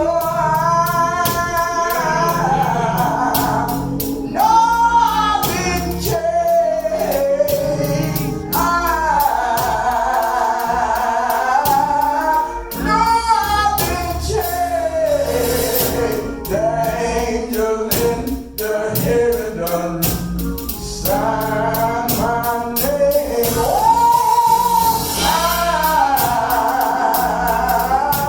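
A church music ministry singing a gospel song, the voice sliding and holding long notes over instruments, with percussion striking a steady beat.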